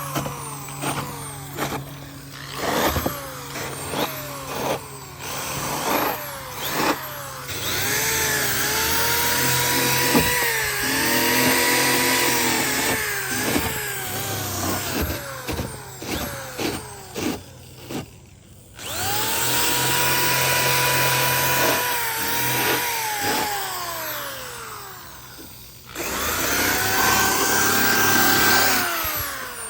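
Handheld electric power tool motor run in many quick trigger pulses, then in long runs of several seconds. The whine rises as the motor spins up, holds steady, and falls away as it winds down.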